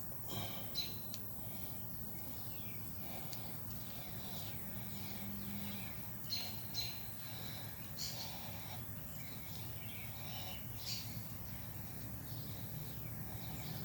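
Faint bird chirps scattered over steady outdoor background noise, with a few light clicks.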